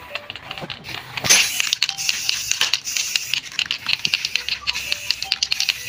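Aerosol spray-paint can hissing as white paint is sprayed onto a motorcycle wheel rim, starting about a second in and running on steadily. Faint music plays behind it.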